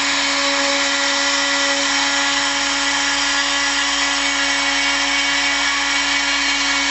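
Hobby CNC mill spindle running steadily while milling, with a constant whine over an even cutting noise.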